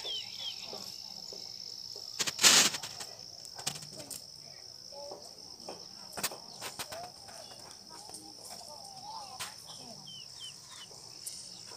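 Outdoor ambience of a steady, high-pitched insect drone with faint, distant chatter of voices. A short, loud burst of noise about two and a half seconds in, and a few scattered clicks.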